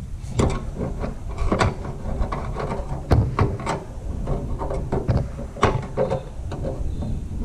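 Irregular knocks, clicks and clatter of tools and metal parts being handled while a motorcycle fuel tank is taken apart, about a dozen sharp strikes, the loudest about three seconds in and again near six seconds.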